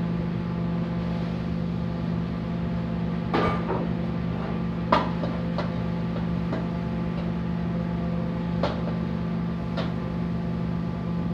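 Commercial gas wok burner running with a steady hum. A metal ladle clanks against the steel wok about six times while food is stir-fried.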